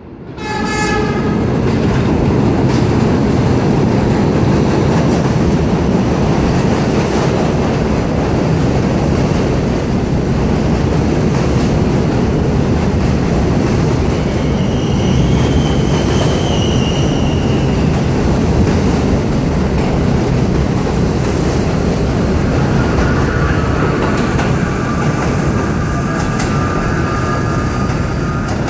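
R68 subway train running past an elevated station platform without stopping: a short horn blast just as it comes in, then loud, steady rumbling and clatter of steel wheels on the rails. A brief high squeal sounds about halfway through, and a steady whine joins near the end.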